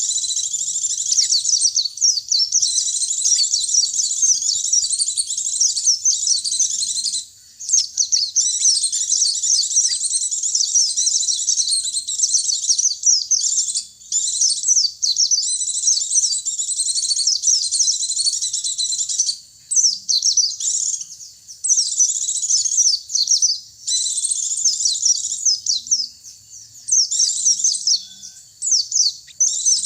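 High, rapid twittering song of pleci (white-eye) and sogon birds, in long runs of fast chirps broken by short pauses every few seconds.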